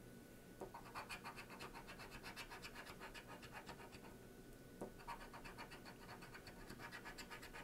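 Scratch-off lottery ticket being scratched: quick, repeated short strokes scraping the coating off the play area, faint.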